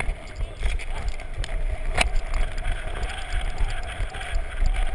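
Wind rushing over the microphone of a downhill mountain bike's on-board camera at speed, a steady rumbling rush, with a sharp knock about two seconds in.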